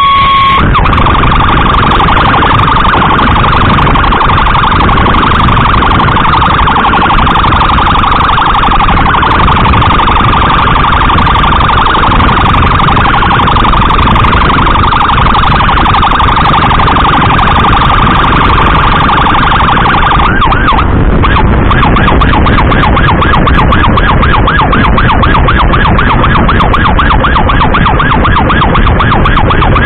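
Emergency siren sounding continuously with a fast warble, switching about two-thirds of the way through to a quicker, choppier repeating pattern, over a steady low road and wind rumble.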